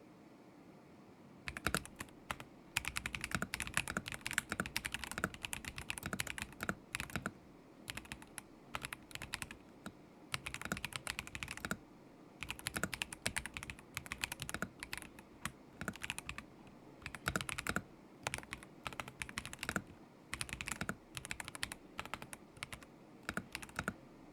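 Typing on a KZZI K75 Pro mechanical keyboard with Moment linear switches: quick runs of key clacks broken by short pauses, starting about a second and a half in.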